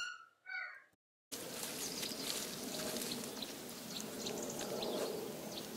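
Rural outdoor ambience: a steady background hiss with faint, scattered bird chirps, after a brief cut to silence about a second in.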